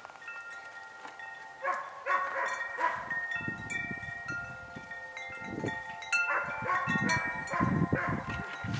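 Wind chimes ringing, with several metal tones struck over and over and left to ring. Two clusters of strikes stand out. A low rumble runs under the chimes through the second half.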